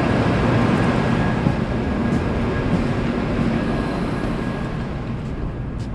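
Steady hum and rushing noise of a Shinkansen train standing at the platform before departure, its onboard equipment and air conditioning running, with a faint steady high tone and a few light clicks.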